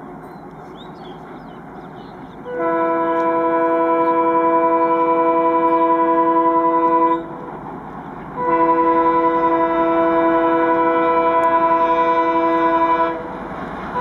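WDM-3D diesel locomotive horn sounding two long steady blasts of about four and a half seconds each, with a short break between them and a third starting at the very end, over the rumble of the approaching train running at speed.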